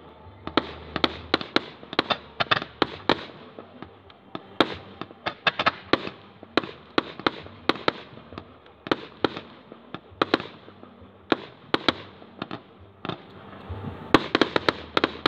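Aerial fireworks display: a quick succession of sharp bangs and cracks from shells bursting, two or three a second, thickening into a dense volley near the end.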